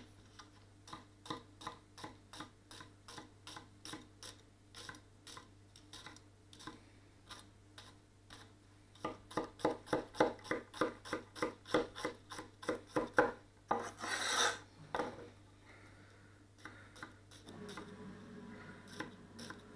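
A Catcheside Forged Geometry gyuto (230 mm chef's knife) dicing an onion on a wooden chopping board: light, even taps of the blade through the onion onto the board, about three a second, then a run of harder, faster chops near the middle, and a longer scrape of the blade on the board about three-quarters of the way through.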